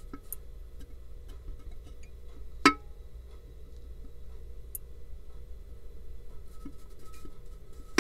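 Tipping bucket rain gauge's plastic bucket assembly rocked slowly by hand past its reed switch, heard from inside the gauge: faint ticks as the magnet closes and opens the reed switch, and one sharper click about two and a half seconds in.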